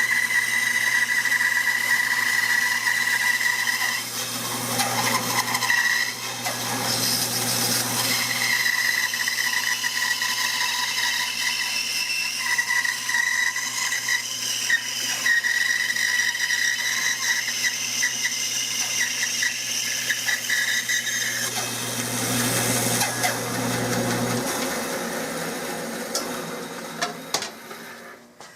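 Bandsaw running with a steady motor hum and high blade whine while it cuts through a walnut gun-stock blank. The motor is switched off about three-quarters of the way through and the saw winds down to near silence.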